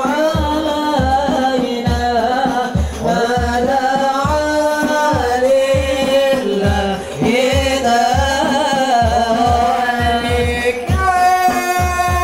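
Men singing an Islamic devotional song (sholawat) into microphones, with long wavering melismatic lines, over an irregular beat of frame drums.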